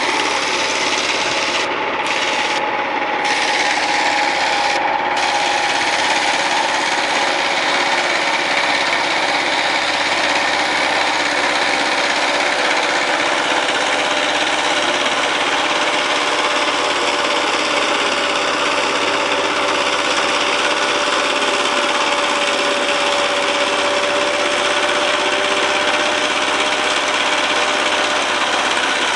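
Power tiller engine running steadily with a continuous rasping mechanical noise.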